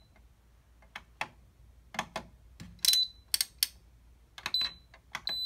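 Kalorik AF-250AD2 air fryer's touch-panel buttons and control dial clicking as they are pressed and turned, with three short high electronic beeps from the panel in the second half. The unit is powered and responding to its controls after its thermal fuse was replaced.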